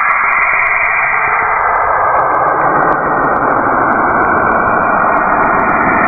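Saturn's radio emissions, picked up by a spacecraft and converted into audio: a steady, dense rushing noise with faint drifting tones in it, filling out lower in pitch after about two seconds.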